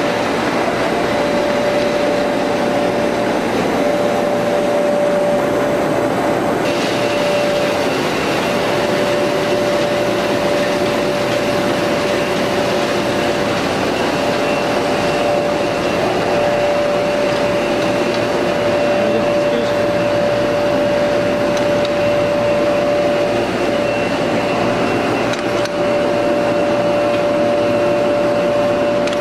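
Ultra Coat 1020 spot UV coater running: a steady mechanical whir with a constant humming tone, and a higher thin whine that joins about seven seconds in.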